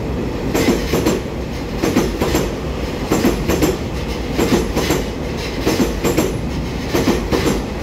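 A twelve-car EMU3000 electric multiple unit running past a station platform: a steady rumble of the cars with repeated clicks of the wheels over the rail joints.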